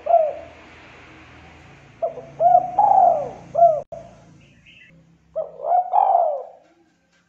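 Spotted dove cooing: two full phrases of several rounded hooting notes each, starting about two seconds and five and a half seconds in, after the last note of a previous phrase at the very start. The voice is deep and clear, with a short click between the phrases.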